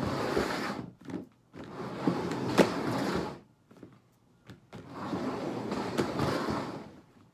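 Two upturned plastic bowls being slid and shuffled across a tabletop: rough scraping in three bursts of about two seconds each, with a sharp knock in the middle one.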